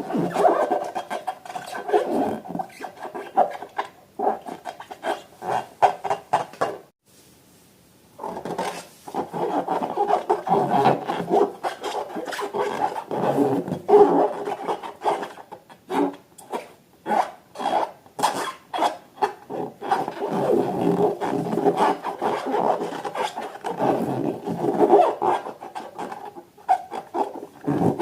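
Rubber balloons being rubbed and handled, giving a run of rapid squeaky rubbing strokes that pause briefly about seven seconds in.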